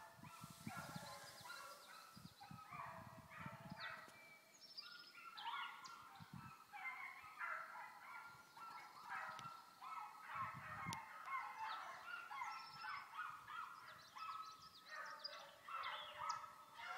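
A pack of dogs baying on a rabbit's trail, many voices overlapping without a break, faint and distant. Their cry shows the pack is still running the rabbit.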